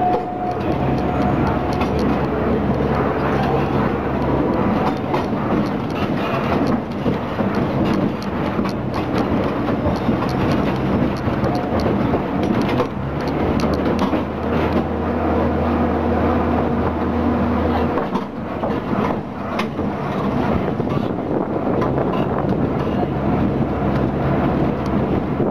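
Botchan Ressha replica steam-style tram riding on street track: the locomotive's diesel engine drones steadily, swelling for a few seconds about two thirds of the way through, over the rumble of the cars on the rails with occasional sharp knocks.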